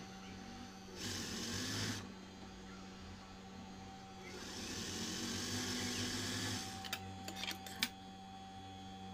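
Industrial sewing machine running with a steady motor hum. It stitches a knit side seam in two short runs, about a second in and again from about four to six and a half seconds. A few sharp clicks of fabric handling come near the end.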